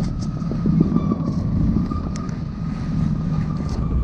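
Magic-carpet conveyor belt lift running under a seated rider: a steady low rumble with a constant thin whine above it and a few faint clicks.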